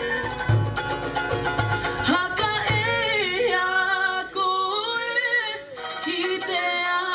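Live Cook Islands string-band music: voices singing over fast-strummed ukuleles, with a large skin drum beating a steady pulse through the first half.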